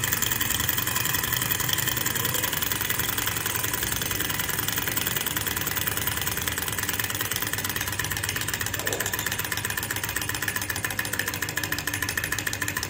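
Small hot-air model Stirling engine running fast: a steady, rapid mechanical clatter from its piston and flywheel.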